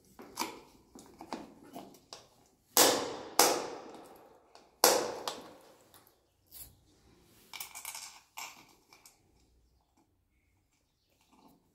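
Plastic outlet faceplate being handled and pushed into its wall box: light clicks and rustling, with three sharp knocks near the middle that echo off the tiled walls. Fainter scraping follows as the plate is pressed flat.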